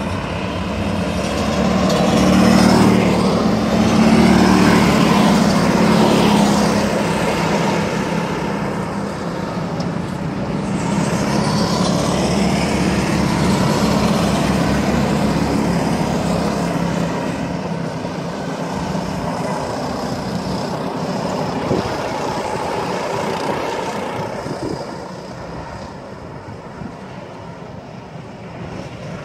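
Racing go-kart engines revving hard as karts lap past, the whine rising and falling in pitch with each pass. It is loudest in the first few seconds and again about twelve seconds in, and fades near the end.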